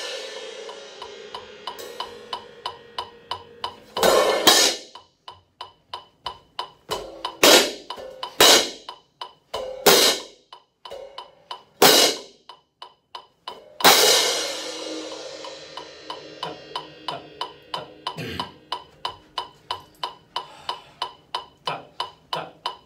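A pair of Zildjian hand crash cymbals struck together about seven times. Some crashes are left to ring, while others are choked short against the player's chest. A steady quick ticking keeps time underneath.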